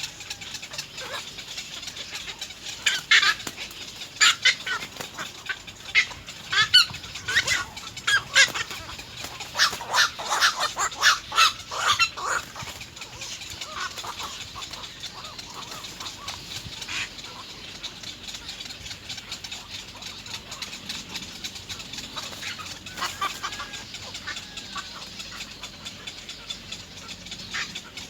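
Little egret chicks at the nest begging for food: a dense run of short, rapid calls in the first half, thinning out to scattered calls later.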